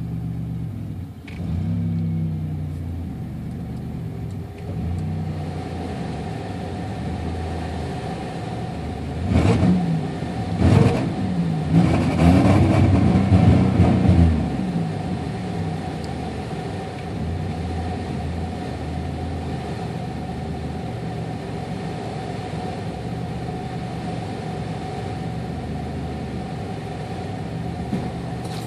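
Buick Regal GSE's supercharged 3.8-litre V6 idling, blipped up in several quick revs about ten to fifteen seconds in, then settling back to a steady idle. This is the engine the owner says still misfires in the mornings.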